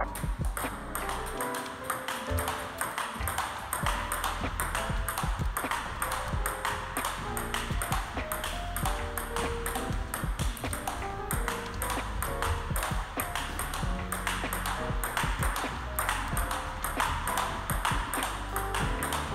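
Table tennis rally: the celluloid ball clicks sharply and repeatedly off rubber bats and the table top in a quick, steady rhythm. Background music with held notes plays underneath.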